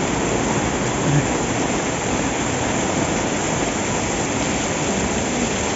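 Heavy rain pouring down onto a street and pavement, a steady even rush of falling water.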